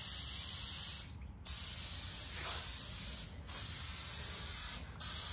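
Aerosol can of spray adhesive hissing in long bursts, with three short breaks where the nozzle is released, as glue is sprayed onto a board for bonding laminate.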